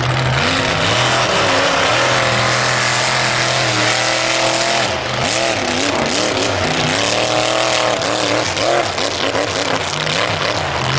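Monster truck engine running loud under hard throttle, its pitch rising and falling with repeated revs as the truck drives over crushed cars; the revs drop and climb again about five seconds in.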